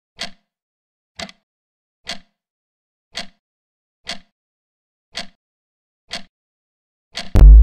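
Countdown-timer sound effect: a clock-like tick about once a second, then a couple of quick ticks and a loud buzzer near the end that slides down in pitch, marking time up.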